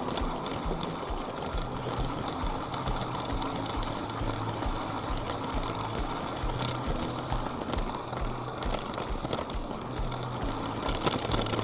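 A LEGO train's electric motor running, with its wheels clicking over the track joints about four times a second, heard from a camera riding on the train.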